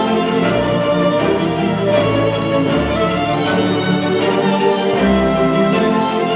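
Cinematic classical music with violin and a string section playing held, flowing lines over a low bass line, played back through Wharfedale Diamond 12.2 bookshelf speakers.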